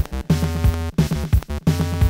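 Electronic synthesizer background music with a steady drum-machine beat.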